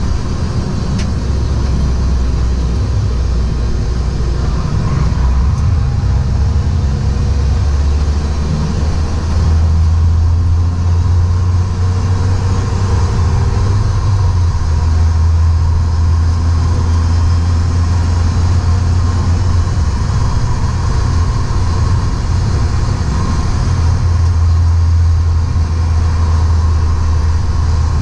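Stock BMW E36 Compact lapping a race track, heard from inside the car: a loud, steady low drone of engine, road and wind noise. The engine note rises and falls faintly in places.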